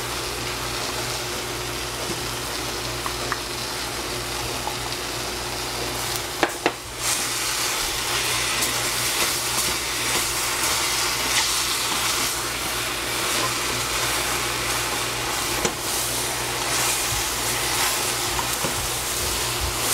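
Eggplant and shredded pork frying in a stainless steel saucepan, stirred with a wooden spatula. Two sharp knocks about six and a half seconds in, after which the sizzling is a little louder, with small crackles.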